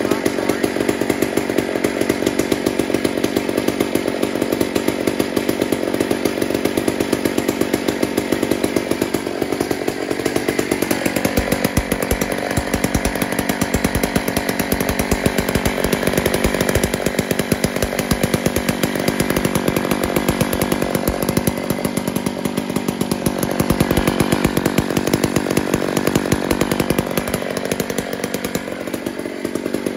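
Homelite Super XL-925 two-stroke chainsaw running loud and steady. Its engine speed drops about ten seconds in, then wavers up and down later on.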